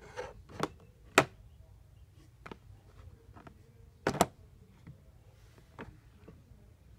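Handling noise: scattered clicks and knocks of things being moved about, with a sharp click about a second in and a louder double knock about four seconds in.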